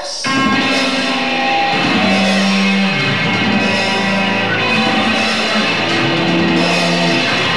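Loud punk rock band music with electric guitar, starting abruptly just after the start.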